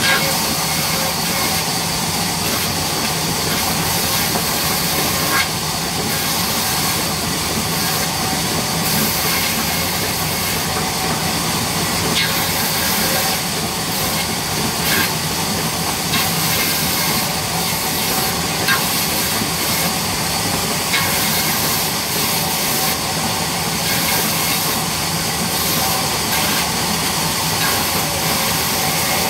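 Large sawmill band saw running steadily and cutting lengthwise through a wooden plank: a continuous dense hiss of blade and machine, with a few short clicks and knocks scattered through it.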